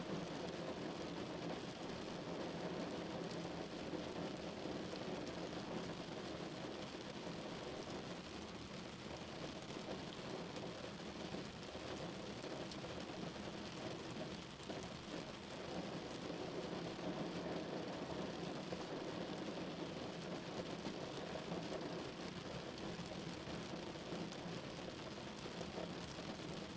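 Rain falling steadily on a car's roof, heard from inside the moving car over even road noise.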